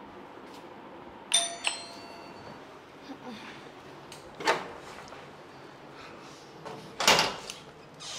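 Electronic doorbell giving a two-note ding-dong chime about a second in. A clunk follows mid-way, then a louder rattling clatter near the end as the metal grille door is opened.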